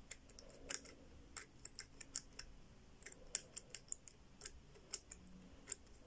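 Faint, irregular clicking of a Zhege four-wheel combination padlock's dial wheel being turned number by number while the shackle is held under tension, to feel for the loosest position of the wheel.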